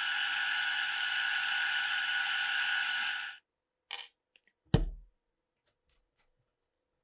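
A power tool running steadily with a whine over a hiss, which cuts off abruptly about three seconds in. Then a light click and a sharp knock, less than a second apart.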